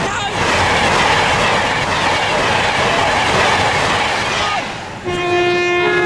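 A train passing through at speed with a loud rushing rumble that eases off about four and a half seconds in. About five seconds in a train horn sounds one long steady note, and a slightly higher note joins near the end.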